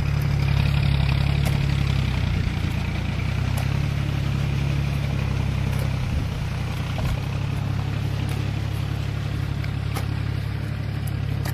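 An engine running steadily at an even speed, giving a low hum, with a few faint knocks here and there.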